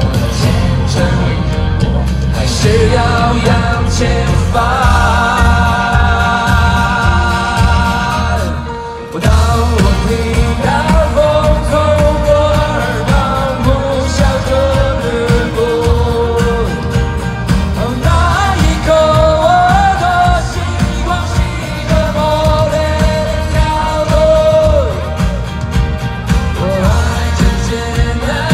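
Live rock band playing: a male lead vocalist singing over acoustic guitar, keyboard and drums, with a brief drop in the music about nine seconds in.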